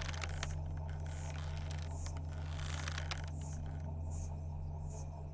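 A steady low background drone, with faint short high chirps scattered through it and a few light clicks.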